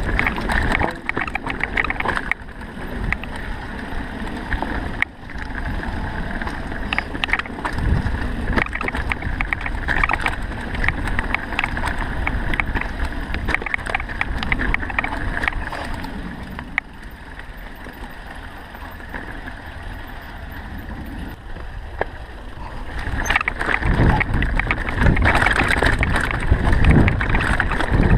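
Rumbling, buffeting noise of wind on the microphone, with scattered crackles and rattles as of moving over rough ground. It eases somewhat about two-thirds of the way through, then builds up again near the end.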